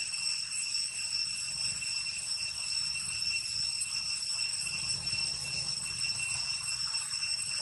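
Steady high-pitched insect drone with a few ringing overtones.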